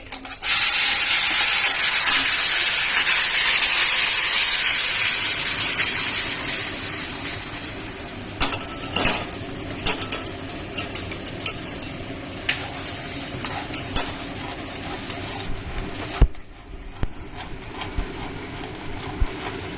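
Hot sugar syrup poured into semolina roasted in ghee, sizzling loudly for the first several seconds and then dying down. After that, a spoon stirring the mixture in the pan with repeated clinks and scrapes against the metal.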